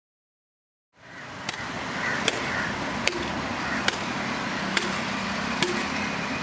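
Outdoor road ambience fading in from silence, a steady hiss-like background, with six sharp clicks or knocks repeating at an even pace, a little more than one a second.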